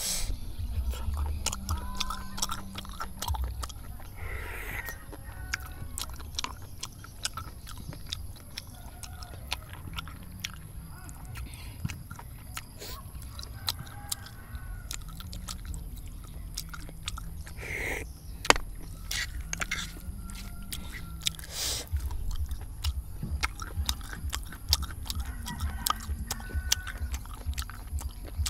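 Close-up eating sounds of spicy fried snails: meat picked out of the shells and chewed, with many small clicks of shell and wet mouth sounds over a steady low rumble.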